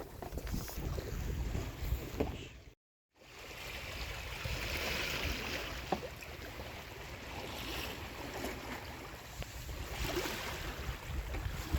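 Water rushing and splashing along a Winner 950 sailing yacht's hull under sail, with wind on the microphone. The sound cuts out completely for a moment about three seconds in, where one excerpt is spliced to the next.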